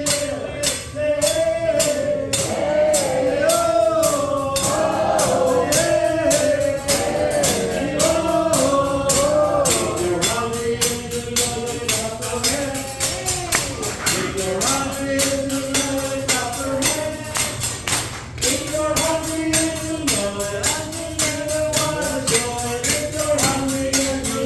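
A song with singing over a fast, steady tambourine-like beat of about four strokes a second.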